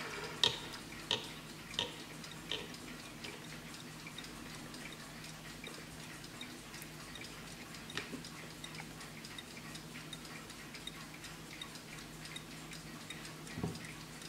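Warmink Dutch pendulum mantel clock ticking steadily, about three ticks every two seconds, with a handling knock at the start, a click about eight seconds in, and a dull thump near the end as its round back door is opened.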